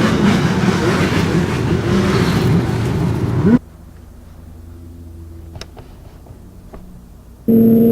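Racing snowmobile engines revving and changing pitch for about three and a half seconds, then cut off abruptly; a quieter stretch with a few faint clicks follows, and a loud steady sound starts again near the end.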